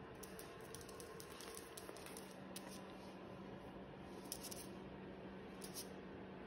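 Faint squishing and scattered light clicks of a Scottish Terrier mouthing and chewing a plush toy, over a steady low hum.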